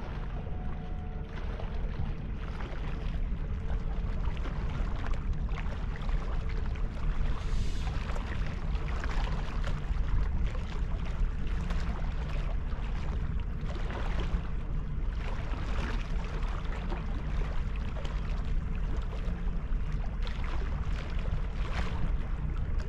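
Wind rumbling on the microphone, with river water washing against the dock wall in surges every couple of seconds.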